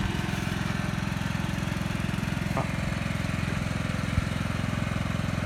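Lawn mower engine running steadily, with a single sharp knock about four seconds in.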